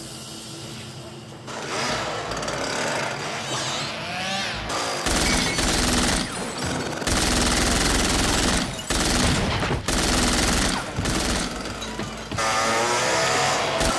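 Long bursts of submachine-gun fire, a film sound effect, start about five seconds in and go on to the end, broken by a few brief pauses. Shortly before they begin there is a wavering, rising tone.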